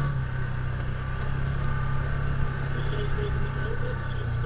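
Can-Am Commander 1000 side-by-side's V-twin engine running steadily at low speed under load, climbing a steep gravel trail, heard from the driver's seat.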